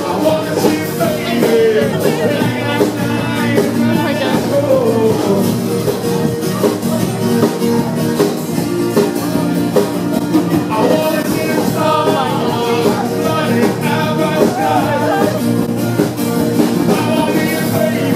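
Rock music with a singer, played by a band.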